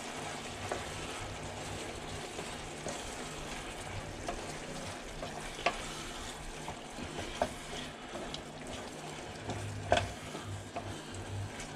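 Tomato and paprika sauce sizzling in a pan while it is stirred, with a few light clicks of the utensil against the pan.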